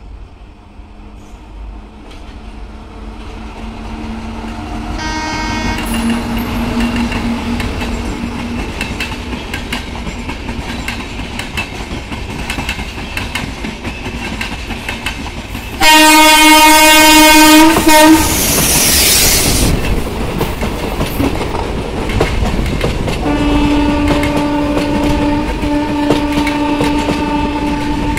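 Indian Railways express trains passing on the tracks, their wheels clattering over the rail joints, with the noise building as a train draws near. A locomotive's air horn gives a short blast about five seconds in and a very loud two-second blast about sixteen seconds in, then a couple of seconds of rushing hiss; a long horn sounds from about twenty-three seconds on.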